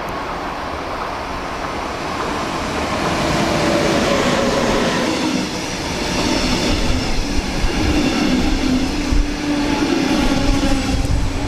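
An electric locomotive hauling double-deck passenger coaches runs close past a platform. It grows louder over the first few seconds, with a falling whine as the locomotive goes by, then steady wheel and running noise that rises and falls as the coaches roll past.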